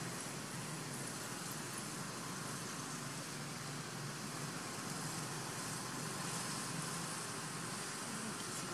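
Steady background rumble and hiss, with no distinct events.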